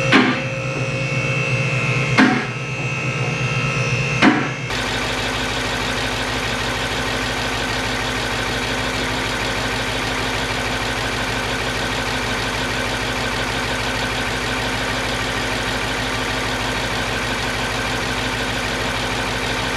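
A car lift's motor running as it raises the car, with three sharp latch clacks about two seconds apart. After about four and a half seconds this gives way to the Lexus IS F's 5.0 L 2UR-GSE V8 idling steadily, heard from beneath the car, kept running so the warm transmission fluid can drain to the correct level.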